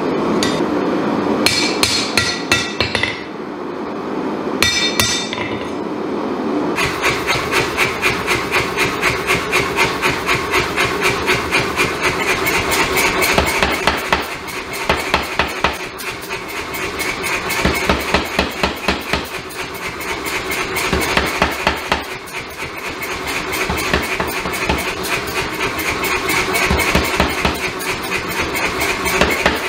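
Hand hammer ringing on a steel anvil in a few short groups of blows; then, about seven seconds in, a power hammer starts pounding a red-hot damascus bar in a fast, even rhythm of several blows a second over the hum of its motor, stopping briefly now and then.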